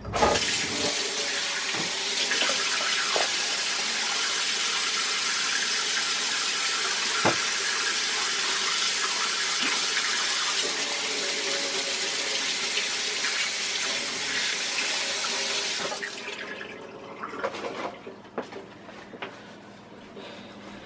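Kitchen faucet running into the sink while a tasting spoon is rinsed under it, shut off about sixteen seconds in; a few light knocks follow.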